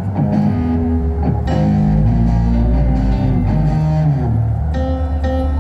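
A live rock band plays through the PA during a sound check: electric guitar chords over bass guitar, with a deep held bass note in the middle and a brighter guitar chord coming in near the end.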